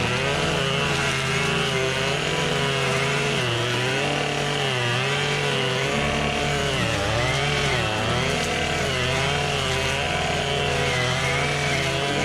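Gas string trimmer (weed eater) running, its small engine's pitch dipping and rising again every second or so.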